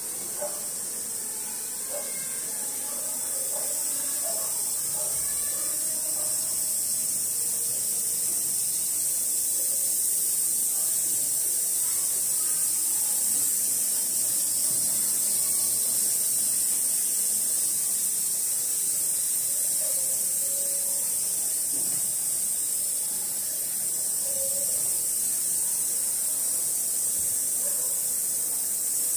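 Steady high-pitched hiss, with faint snatches of indistinct voices underneath.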